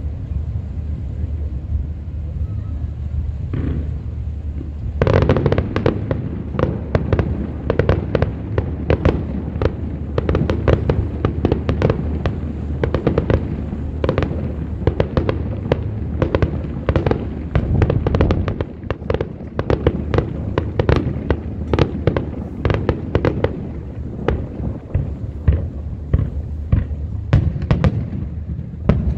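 Fireworks display: a steady low rumble with a single pop, then from about five seconds in a dense, fast run of bangs, several a second, that goes on without a break.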